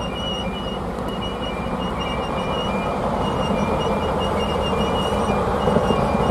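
DB V 60 diesel shunting locomotive passing slowly while hauling passenger coaches: its V12 diesel engine running steadily, growing louder as it draws near. A thin, high squeal comes and goes above it.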